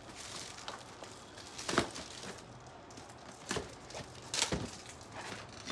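A cardboard gift box being handled and opened by hand: rustling, with a few sharp taps and scrapes.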